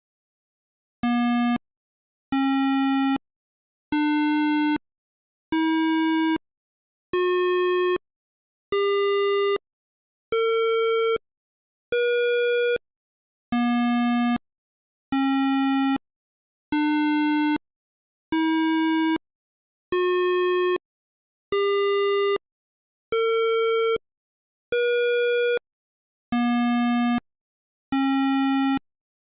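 Simulated Arduino buzzer playing the sargam scale Sa Re Ga Ma Pa Dha Ni Sa as separate buzzy electronic beeps about a second and a half apart, each a step higher, rising about an octave. After the eighth note it starts again from the bottom: two full runs, then the first two notes of a third.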